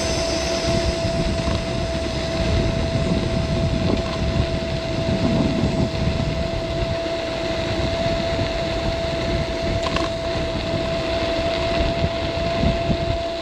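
Caroma P1 seated electric scooter's 350 W electric motor under way: a steady whine on one unchanging pitch over a low, continuous rumble of riding noise.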